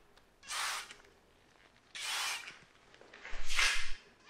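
Hand trigger spray bottle of marine ceramic coating being squeezed, giving four short hissing sprays; the third is the loudest.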